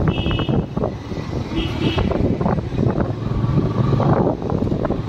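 Road traffic noise with vehicles running past and voices in the background, plus a couple of brief high-pitched beeps.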